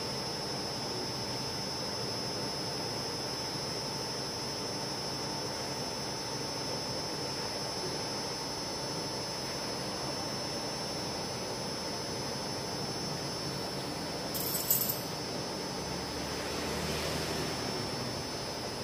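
Steady mechanical whirring of a running machine, with a high steady whine over it, and a short rattle of clicks about fourteen seconds in.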